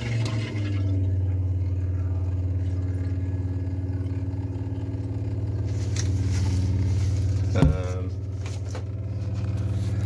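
Water pump motor humming steadily, pushing water from the storage tank through a newly installed electric instant water heater so that the heater detects flow and can start. A short, separate sound breaks in about three-quarters of the way through.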